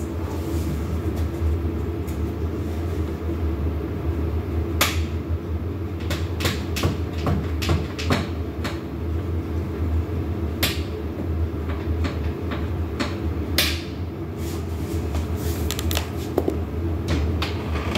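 Scattered clicks, taps and knocks of a door sweep strip and its packaging being handled and marked, over a steady low hum.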